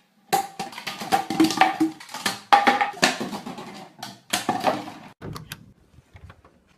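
Short percussive music: a quick run of sharp hits over a few held notes, stopping about five seconds in.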